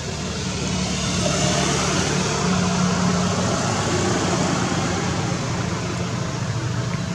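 Steady engine hum of a motor vehicle with road noise, growing louder about a second in and then holding.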